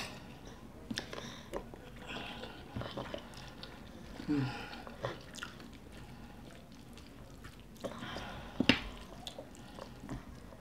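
Close mouth sounds of two people eating white rice and stew: soft chewing and smacking, with spoons clicking and scraping on plates and one sharper tap near the end.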